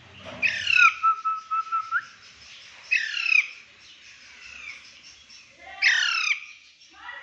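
Pet parrot calling three times, about half a second, three seconds and six seconds in, each short call falling in pitch; the first runs on into a steady whistled note for about a second.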